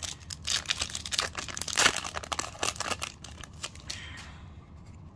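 Yu-Gi-Oh! booster pack wrapper being torn open and crinkled by hand: a dense run of sharp crackles that dies down about four seconds in.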